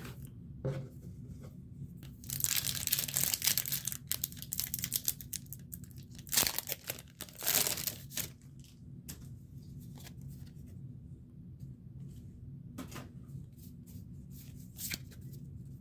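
Foil Pokémon booster pack wrapper being torn open, with a long crinkling tear a couple of seconds in and two shorter rips a few seconds later, then faint rustles and ticks of handling the cards.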